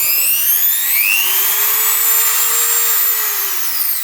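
ACZ 6030 handheld electric die grinder (a 280 W mini rotary tool) running with nothing on it. Its high whine rises in pitch as it spins up, holds steady, then falls away near the end as it is switched off and coasts down.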